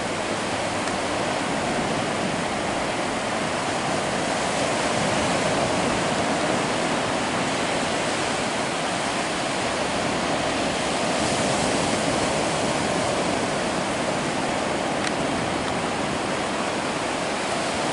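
Ocean surf on a beach: a steady, continuous rushing wash of waves.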